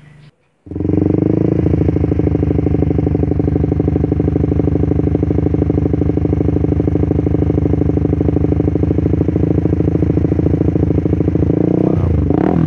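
Motorcycle engine idling steadily with an even fast beat after a brief gap, just after an oil change with fresh oil. Near the end it is revved up and down.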